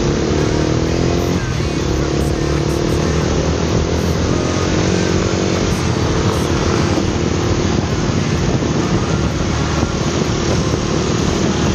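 Motorcycle engine accelerating on the move, its pitch rising over the first second and a half, then rising again more slowly until about six seconds in, over a steady rush of wind and road noise.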